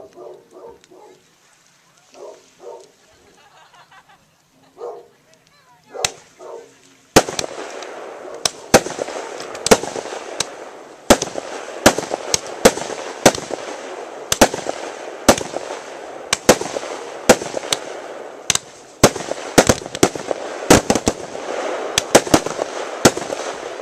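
Fireworks going off: a single sharp bang about six seconds in, then from about seven seconds a steady hissing crackle with sharp bangs about one to two a second.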